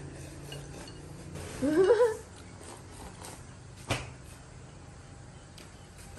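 Table-eating sounds: chopsticks against porcelain noodle bowls, with one sharp clink about four seconds in. About two seconds in, a person makes a short, wavering, rising 'mm'-like vocal sound.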